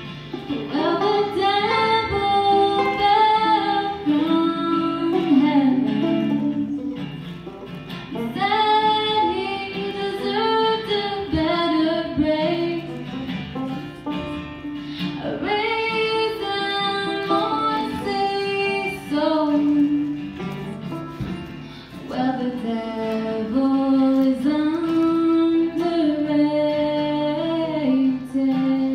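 Live acoustic folk song: a woman singing a melody over strummed acoustic guitar and banjo.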